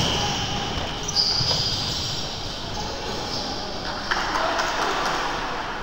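A ball bouncing on a hard court during play, under voices in the hall.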